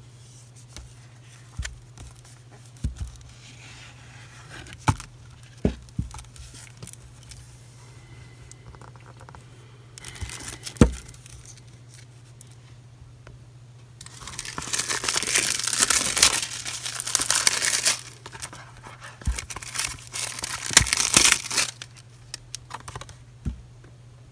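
Plastic shrink-wrap being torn and crinkled off a Blu-ray case and slipcover, after a run of light clicks and taps from handling the case. The tearing comes in a short burst about ten seconds in, then in two long, loud stretches later on.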